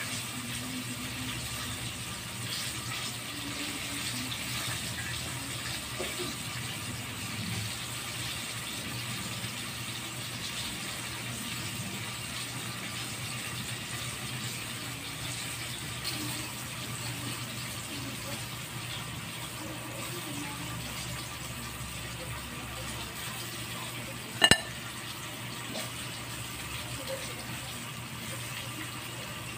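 Breaded fish pieces deep-frying in hot oil in a wok: a steady sizzling hiss. A single sharp click about five seconds before the end.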